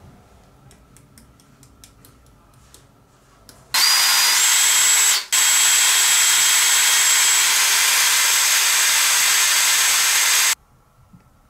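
A handheld electric power tool's motor switched on about four seconds in, its high whine climbing to speed over a loud hissing rush, cut off for an instant, then running steadily until it stops near the end. A few faint light ticks come before it.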